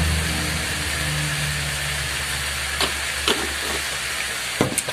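Potato cubes frying in hot olive oil, a steady sizzle over a low steady hum. A few light clicks come in the second half as a pepper grinder is turned over the pan.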